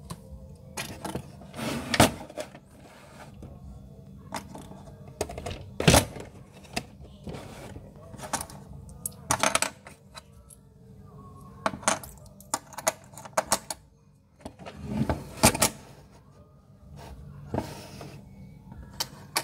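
Plastic coin bank being handled: a string of sharp clicks, knocks and clinks as the box is turned over, its coin cap handled and its top pressed, with the loudest knocks about two and six seconds in.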